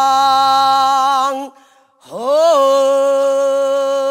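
Female pansori singer holding a long, steady sung note that breaks off about a second and a half in. After a short breath she slides up into a new note and holds it steadily.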